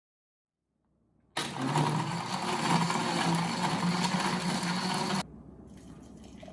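Philips countertop blender running steadily as it blends a lychee smoothie, starting about a second and a half in and cutting off suddenly near the end. Then the thick smoothie pours from the blender jar into a glass jar, much quieter.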